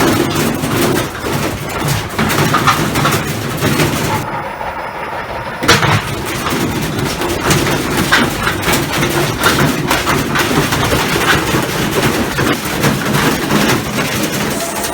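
Washing machine spinning with heavy objects loaded in its drum, the load and drum banging and clattering hard and irregularly over the running motor, with one especially loud bang about six seconds in.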